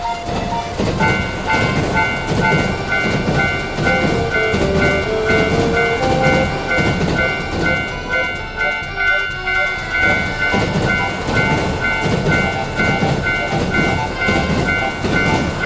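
Railroad crossing warning bell ringing its repeated 'kan kan kan' in a steady, even rhythm, starting about a second in and stopping just before the end, over the rhythmic clatter of a train running on the rails.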